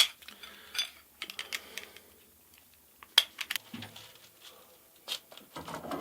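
Conduit and its small metal connectors being handled and fitted together: a scattered run of sharp clicks and light taps, the strongest at the start and about three seconds in.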